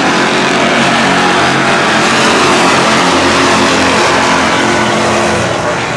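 A pack of stock cars racing past at speed, many engines running hard with overlapping engine notes. It swells a little around the middle as the field goes by.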